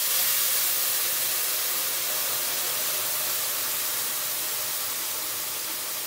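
Hot semolina roasted in butter hissing and sizzling as warm syrup of milk, water and sugar is poured into the pot, sending up steam. A loud steady hiss that fades slowly.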